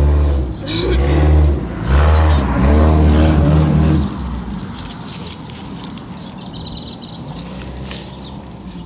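A motor vehicle engine revving in about four surges over the first four seconds, rising and falling in pitch, then settling to a low steady hum.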